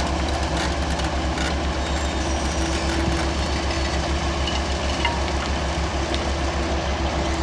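A large engine running steadily, with a fast, even low throb.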